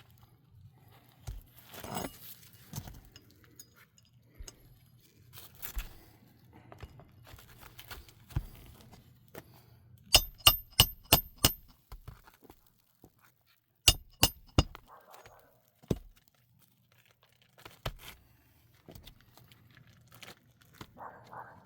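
Hard objects clinking and being handled: a quick run of five sharp, ringing clinks about ten seconds in and two more a few seconds later, among scattered knocks and rattles over a faint steady low hum.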